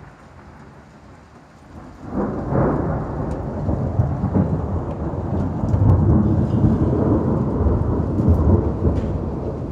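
Thunder rolling overhead during a thunderstorm: a low rumble that swells sharply about two seconds in and keeps rumbling, with rain falling.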